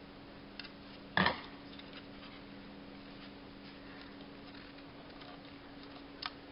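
Hollow hard-plastic toy figure being handled: one sharp plastic knock about a second in, then a few faint small clicks, over a steady low hum.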